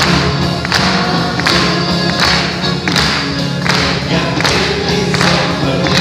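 Live band playing a song while many voices sing together, over a steady beat that strikes about every three-quarters of a second.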